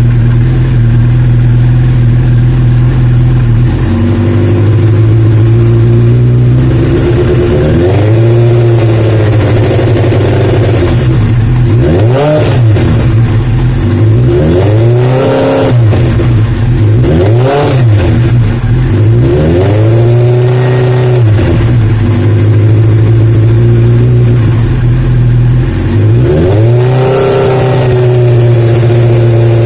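1998 Suzuki GSX-R 750 SRAD inline-four engine idling, then revved up and back down again and again, with the clutch out and the rear wheel spinning in gear.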